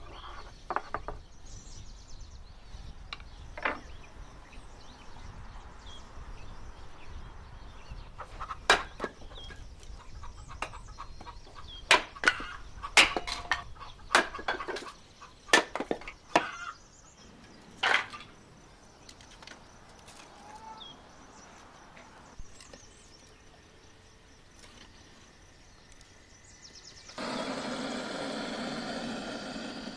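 An axe splitting firewood: a series of sharp, loud blows and cracks of wood, spread unevenly over about ten seconds. Near the end a handheld gas blowtorch starts up with a steady hissing rush as it is held to kindling in a clay stove.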